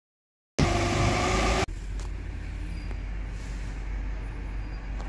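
A heavy diesel garbage truck engine running loud with a strong hiss for about a second, cut off abruptly; then the Peterbilt 348 garbage truck's diesel engine running steadily and more quietly.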